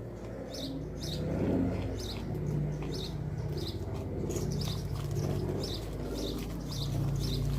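A small bird chirping over and over, about two short high chirps a second, over a low steady hum.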